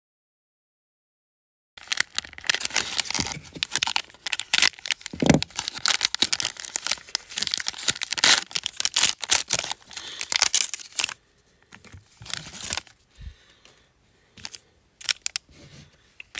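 Plastic wrapper of a basketball trading-card cello pack being torn open and crinkled by hand. There is dead silence for about the first second and a half, then dense crinkling and tearing, which thins to scattered rustles after about eleven seconds.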